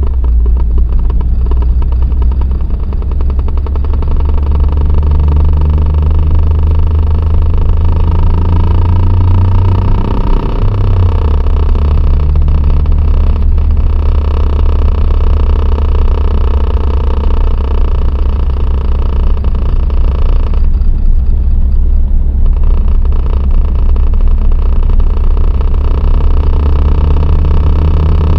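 A DSM car engine running steadily with a rattling noise that the owner cannot identify. The engine note dips briefly about ten seconds in, then settles again.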